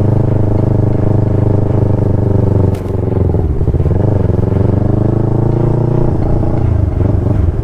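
Motorcycle engine running under way. About three seconds in, the engine note drops briefly, dips and climbs back, then holds steady, with another change in engine speed about six seconds in.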